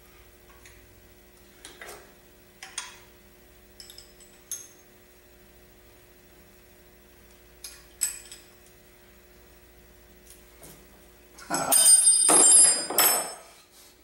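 A wrench working a fitting on a Quincy 325 compressor head: light metal clicks now and then, then near the end about two seconds of loud metal clattering and ringing.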